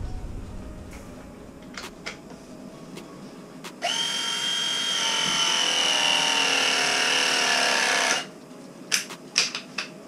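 Cordless power tubing cutter spinning around a copper pipe to cut it: a steady motor whine starts abruptly about four seconds in and runs for about four seconds before stopping. A few light clicks of handling follow near the end.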